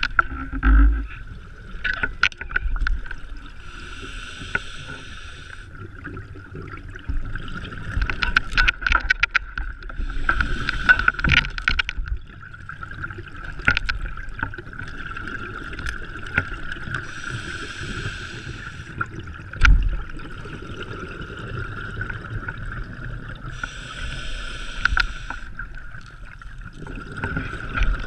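Scuba diver's breathing heard underwater through a regulator, with a burst of exhaled bubbles about every six or seven seconds over a steady high-pitched hum. Scattered clicks and knocks run throughout.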